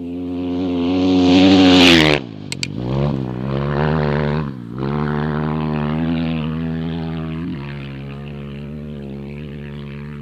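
Off-road desert race vehicle's engine at high revs, approaching and passing close by about two seconds in, with a couple of sharp clicks just after the pass. It then pulls away, the pitch dipping and climbing again twice as it shifts through the gears, fading slowly.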